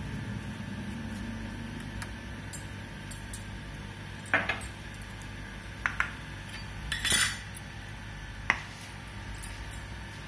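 Scattered clinks and knocks of kitchen dishes and a spatula being handled on a granite countertop, the loudest clatter about seven seconds in, over a low steady hum.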